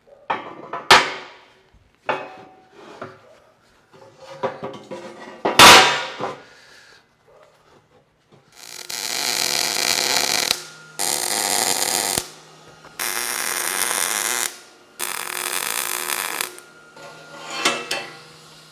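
Heavy steel plate clanking as it is set and shifted on a square-tube steel frame, the loudest clank about six seconds in. Then four bursts of wire-feed (MIG) welding, each about a second and a half of steady crackling hiss, tacking the plate in place, followed by a few knocks of a clamp being handled.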